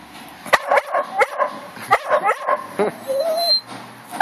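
A dog giving a run of short, sharp barks and yips, then a brief wavering whine a little after three seconds in.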